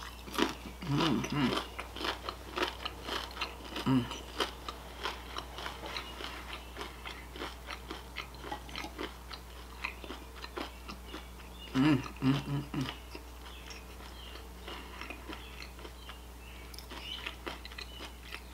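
Close-miked chewing of oven-fried breaded shrimp and salad: a steady run of small crisp crunches.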